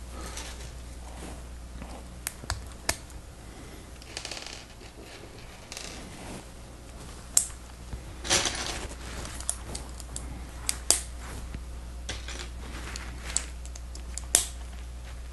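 Plastic Lego Technic pieces being handled and fitted together: scattered sharp clicks and short rattles, with a longer rattle about eight seconds in, over a low steady hum.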